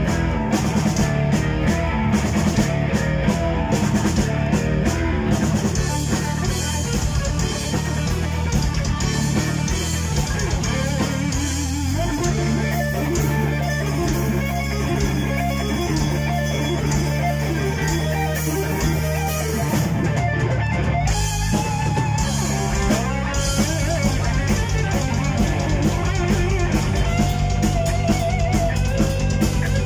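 Heavy metal band playing live: distorted electric guitars over bass and drum kit, the riff changing about twelve seconds in and again around twenty seconds.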